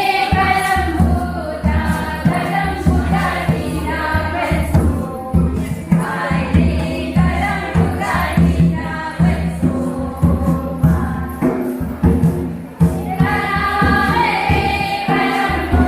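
A group of voices singing a Karam folk song together over a steady drum beat.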